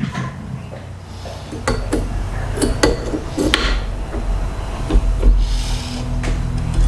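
Metal clicks, knocks and scraping from the parts of a JTS AK-pattern 12-gauge shotgun being handled, as its removed bolt is used to lever up the catch that frees the top cover. The clicks come at irregular intervals, with a short stretch of scraping about five seconds in, over a low steady hum.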